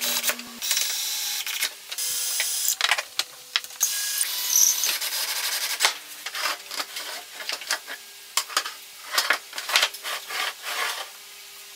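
Cordless drill driving screws into a wooden chair frame in three short runs. After that come irregular sharp knocks and clacks of wooden parts as the folding chair frame is handled.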